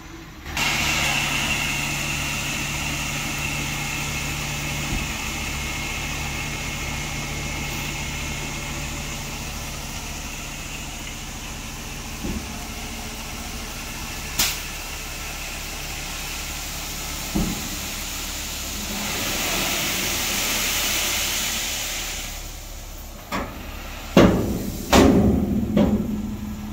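Dump truck engine running steadily while its raised bed tips out a load of red cinders; the pour swells to a louder rush of sliding cinders about twenty seconds in. Several loud knocks come near the end.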